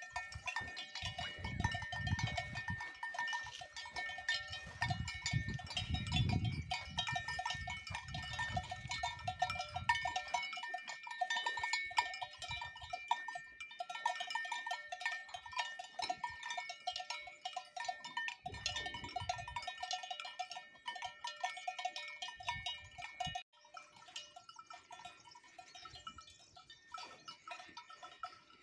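Cowbells on grazing Simmental cows clanking and ringing in quick, irregular strokes as the cows feed. There is a low rumble through the first ten seconds, and the bells turn suddenly fainter about 23 seconds in.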